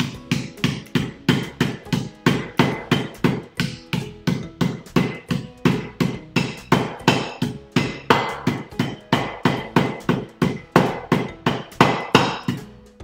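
Wooden rolling pin pounding Oreo cookies sealed in a zip-top plastic bag on a granite countertop, crushing them into small pieces: steady blows, about three a second, that stop near the end.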